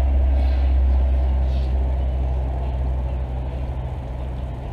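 A loud, steady low rumble that slowly eases toward the end.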